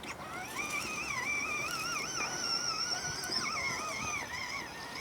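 A single high melodic tone wavering up and down, with a short break about three and a half seconds in.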